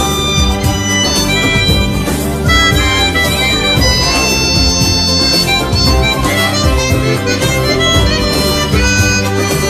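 Harmonica playing a solo melody, with held notes and stepping runs, over backing music with a beat.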